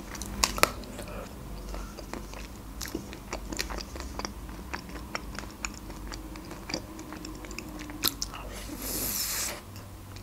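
Close-miked biting and chewing of a chocolate-coated ice cream bar with nuts: the hard chocolate shell cracks in many small, sharp crunches, with wet mouth sounds and a brief hiss near the end.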